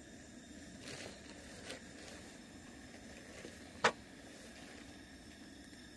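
A fork clinking against a metal pan, with a couple of soft clicks and one sharp clink a little under four seconds in as the fork is set down in the pan. Faint outdoor background behind it.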